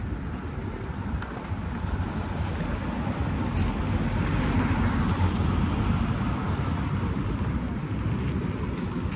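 City road traffic: a vehicle passing close by. The low rumble swells to a peak about halfway through and then eases off.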